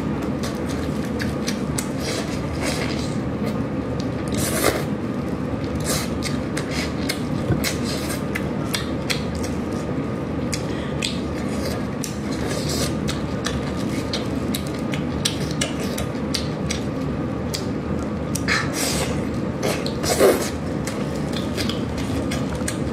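Close-miked eating of braised chicken: chewing and wet mouth clicks, with plastic-gloved hands pulling the meat apart over a plate. A faint steady hum runs underneath.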